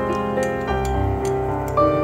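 Background music: a melody of held notes that change every half second or so.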